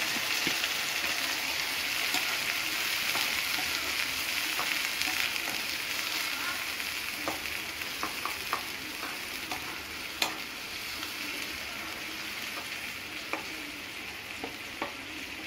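Ground tomato, onion, ginger and garlic paste sizzling in hot oil in a nonstick kadai while a steel ladle stirs it, clicking and scraping against the pan now and then. The sizzle slowly dies down.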